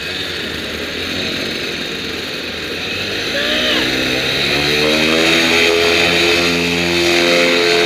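Paramotor engine and propeller running, throttled up about three seconds in, its pitch climbing and then held steady at high power for the takeoff run, over a rushing hiss.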